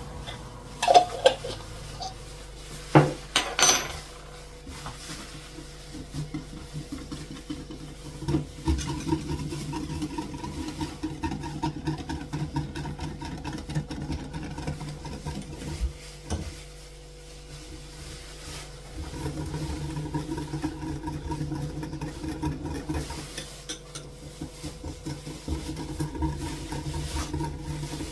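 A few sharp clinks of a utensil against a bowl. Then fast, continuous mixing in a bowl, the utensil scraping and tapping the sides, stopping for a few seconds in the middle before starting again.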